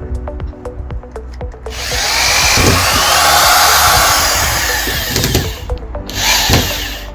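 Power drill driving a screw: one long run of about four seconds, then a second short burst near the end, with background music underneath.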